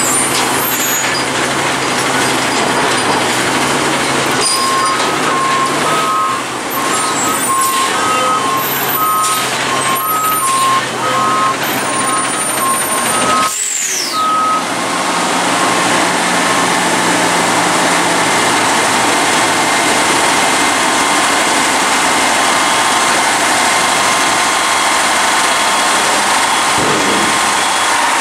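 Front-loader garbage trucks at work. A reversing alarm beeps steadily in two alternating tones for several seconds over a truck's running engine. After a sudden break about halfway through, a CNG Autocar ACX front loader's engine runs steadily as its hydraulic forks lift a dumpster.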